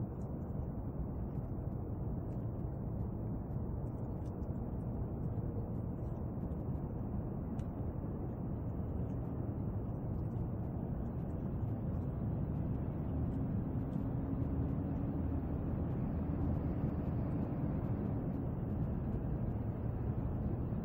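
Steady low rumbling background noise with no distinct events, and a faint hum that comes in for a few seconds past the middle.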